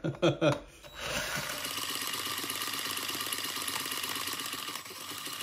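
Small model single-cylinder six-cycle engine, just started by spinning it with a cordless drill, running fast and steady with an even, rapid clatter, after a few sharp clicks in the first second.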